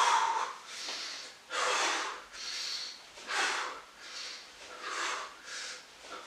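A man breathing hard in short, forceful puffs, a little faster than one a second, from the exertion of a fast crunch exercise.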